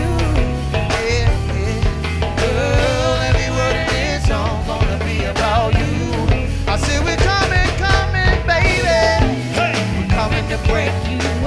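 Live band music: a heavy bass and drum groove with a wavering lead melody line over it.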